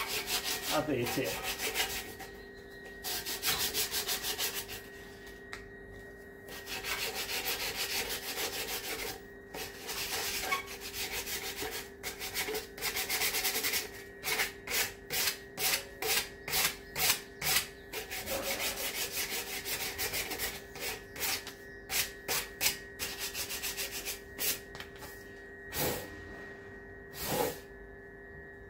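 Cast intake manifold being rubbed clean by hand on its gasket faces. Long rubbing strokes give way about halfway to quick separate strokes, about two to three a second, with a couple of single strokes near the end.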